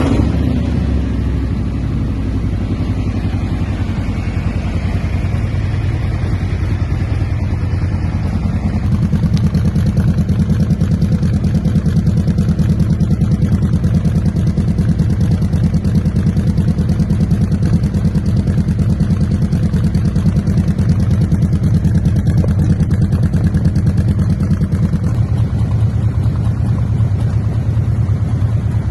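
Harley-Davidson Street Glide Special's 122-cubic-inch Screamin' Eagle Stage 3 V-twin, freshly started and idling through Vance & Hines Dresser Duals mufflers. It runs with a steady loping pulse, and the idle note shifts about eight seconds in and again near the end.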